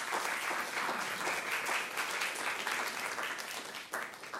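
Audience applauding, many hands clapping together and dying away near the end.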